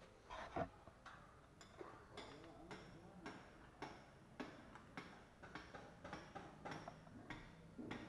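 Faint, evenly spaced light ticks, close to two a second, over quiet room tone.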